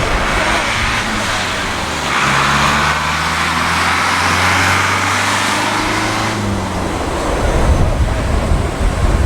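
Jet airliner passing on its landing approach: a broad engine roar that swells about two seconds in and fades after about six, with low engine tones beneath it. Wind buffets the microphone near the end.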